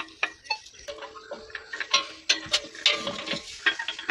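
Irregular clicks and light metallic taps as steel pipe fittings and a pump outlet are handled and fitted together.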